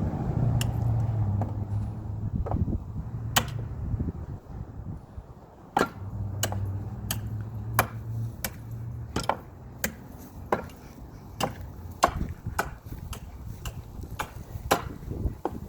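Hammer blows on a screw in playground timber, about twenty sharp ringing strikes coming roughly one or two a second from about three seconds in.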